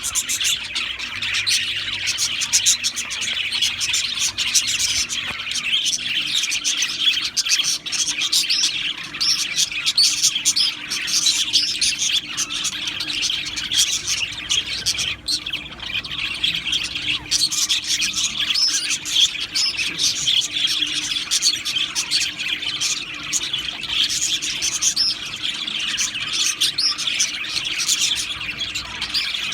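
A flock of budgerigars chirping and chattering, a dense, unbroken mix of many overlapping high calls.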